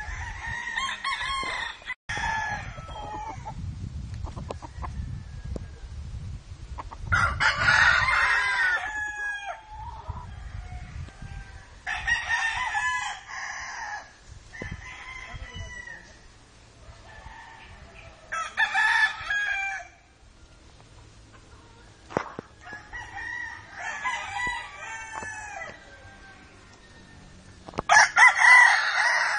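Roosters crowing repeatedly, about six full crows a few seconds apart, the loudest near the end.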